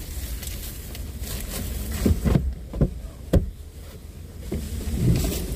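A low steady rumble with several sharp knocks and thumps, bunched about two to three and a half seconds in, as items are shifted around inside a vehicle's cabin.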